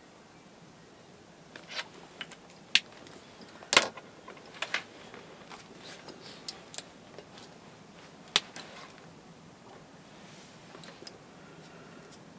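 Plastic art markers being uncapped, recapped and set down on a wooden desk while markers are swapped: a run of sharp clicks and taps. The loudest come about three and four seconds in and again about eight seconds in, and it goes quiet after that.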